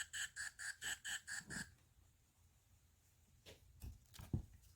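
A sound book's electronic sound chip plays a fast run of short beeping tones, about four or five a second, which stops about a second and a half in. A few faint clicks and knocks of handling the book follow near the end.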